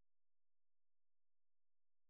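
Silence: the soundtrack is empty, with no sound at all.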